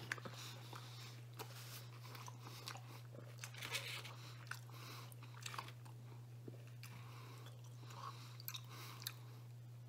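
A man chewing a mouthful of vegetable pizza with his mouth close to the microphone: faint, irregular crunches and wet mouth clicks, over a steady low hum.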